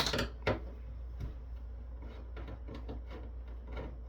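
Clicks and light taps of metal and plastic parts being handled while a network switch is taken apart: a sharp click at the start, another about half a second in, then scattered small ticks over a low steady hum.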